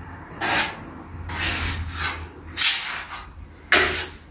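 Putty knife scraping plaster across a wall in about four strokes, roughly one a second, spreading a thin coat of filler over cracks.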